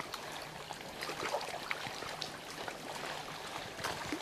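Small waves on calm Lake Superior lapping gently at the shore: a soft, steady wash with small splashes.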